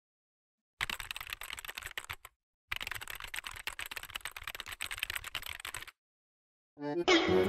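Keyboard-typing sound effect: rapid key clicks in two runs, about a second and a half and then about three seconds, with a short pause between. Music starts just before the end.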